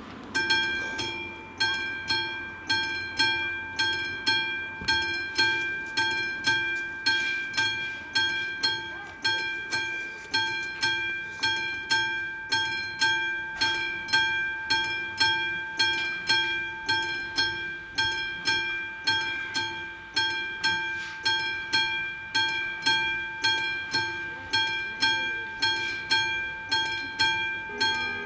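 Level-crossing warning bell ringing in a steady rhythm, struck a little under once a second, starting about half a second in. It rings while the red warning lights flash: a train is approaching.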